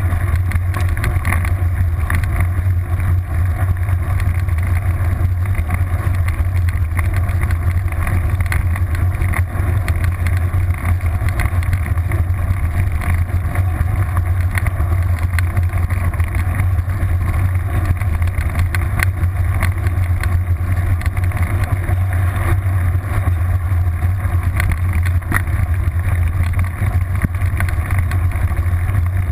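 Mountain bike rolling along a gravel forest track, heard from a camera clamped to the seat post. A steady low rumble of wind and tyre noise runs throughout, with frequent small rattles and knocks from the bumps.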